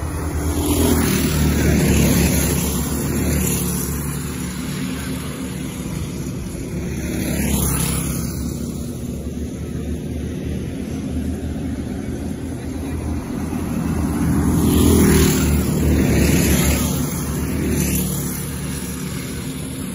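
Dirt-track racing karts with Predator small single-cylinder engines running laps. The engine noise grows louder and fades as karts pass, loudest about two seconds in and again around fifteen seconds.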